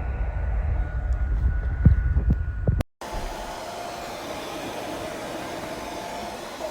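Hair dryer running with a bonnet hood attachment: a steady rush of air with a motor whine, at first under a low rumble and a few knocks. About three seconds in, the sound drops out for a moment and comes back quieter and smoother.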